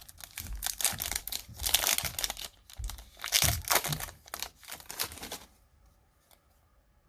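Foil trading-card booster pack wrapper crinkling and being torn open by hand, a dense crackle that stops about five and a half seconds in.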